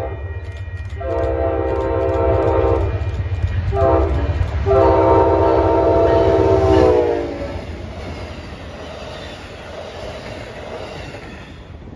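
Amtrak diesel locomotive sounding its multi-chime horn in a long, a short and a long blast as it approaches, the last blast dropping in pitch as it passes, over the low rumble of its engine. After that the passenger cars roll past with a steadier, quieter clatter on the rails.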